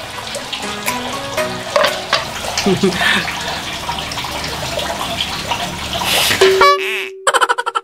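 A steady hiss with scattered light clicks. Near the end a short steady tone sounds and cuts off, then rapid springy pulses of an added sound effect begin.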